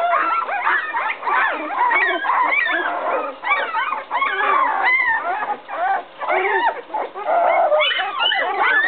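A litter of 11-day-old Bouvier des Flandres puppies crying and whimpering all at once, many high squeals overlapping and rising and falling without a break. The puppies are upset, calling for their absent mother.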